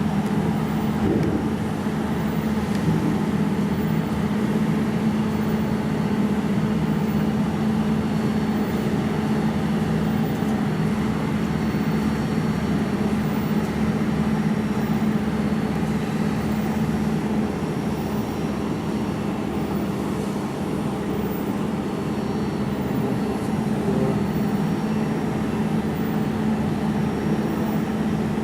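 Steady machine hum with a constant low drone, unchanging throughout, as from a motor or cooling fan running.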